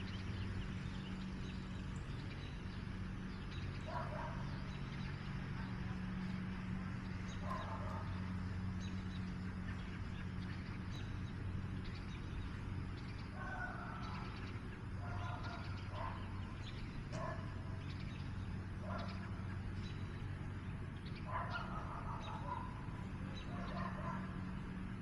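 About ten short animal calls, spaced irregularly, over a steady low hum.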